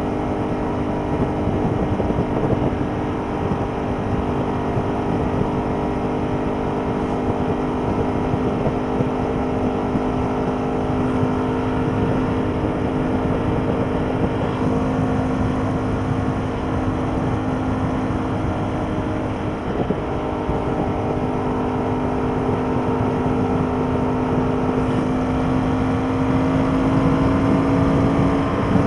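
Ducati Paul Smart 1000 LE's air-cooled L-twin engine running at a steady high road speed, heard from on board with wind and road rush. Its pitch holds steady, then climbs slightly near the end as the bike speeds up.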